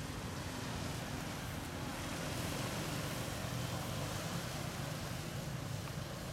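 Steady outdoor background noise: a low rumble under an even hiss, with no distinct animal calls.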